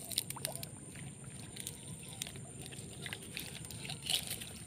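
Faint sloshing of swamp water with small scattered clicks and rustles as a taut set fishing line is pulled in.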